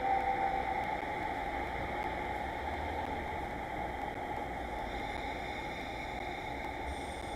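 Steady rushing noise of a freight train running past and fading away, just after the last of a loud two-tone horn blast dies away in the first second.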